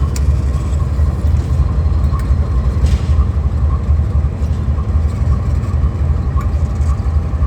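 Diesel-electric locomotive engine running with a steady, heavy low rumble.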